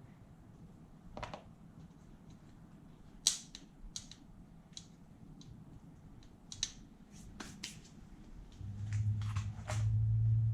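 Scattered sharp clicks and light metal clinks of hand tools and small parts being handled during teardown of a Honda NSR50 engine's gearbox and shift drum. A low steady hum comes in near the end.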